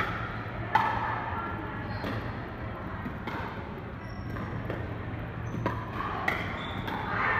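Pickleball rally: paddles hitting the hard plastic ball in a string of sharp pops about a second apart, ringing in a large hall.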